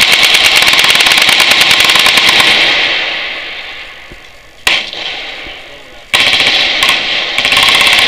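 Machine guns firing long, rapid bursts of automatic fire, a dense loud clatter that fades out about halfway through. A single sharp shot follows, then another long burst starts about six seconds in.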